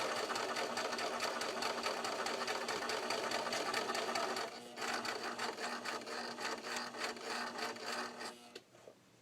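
Opened-up electric sewing machine running on zigzag stitch: a steady motor hum under a fast, even clatter of the needle mechanism swinging in and out. It eases off briefly a little before the middle, picks up again, and stops near the end.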